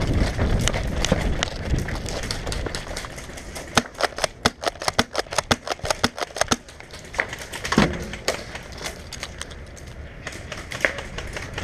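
Airsoft gunfire: a fast, irregular run of sharp clicks and pops, densest from about four to six and a half seconds in, after a couple of seconds of movement and handling noise.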